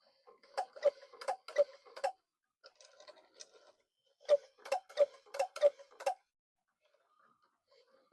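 Sharp mechanical clicks from a cuckoo clock's movement, coming in two runs of about five or six at roughly three a second, with a short pause between the runs.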